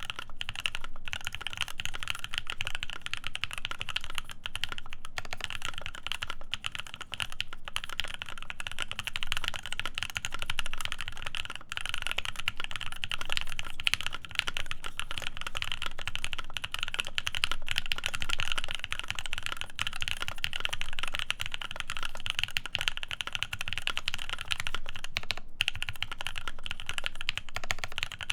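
Continuous fast typing on a CannonKeys Devastating TKL custom mechanical keyboard: lubed C3 Tangerine linear switches (Krytox 205g0, filmed) on an FR4 plate, under PBT keycaps. The keystrokes come in a dense, steady run with a few short pauses.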